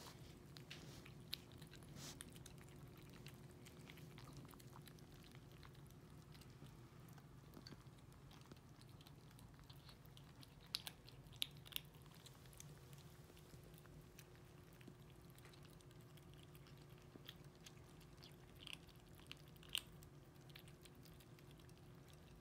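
Young kittens crunching kibble and slurping canned cat food from a shared plate: faint, irregular crunches and chewing, with a few sharper crunches around eleven to twelve seconds in and again near twenty seconds. A steady low hum runs underneath.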